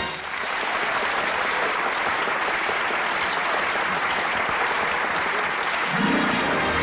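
Studio audience applauding at the end of a song; about six seconds in an orchestra starts playing over the last of the applause.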